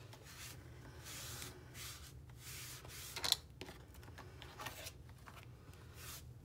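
A folded paper towel rubbed back and forth over freshly glued fabric on a hardback book cover, a soft rustling scrub in several strokes, with one sharp tap about three seconds in as the book is handled.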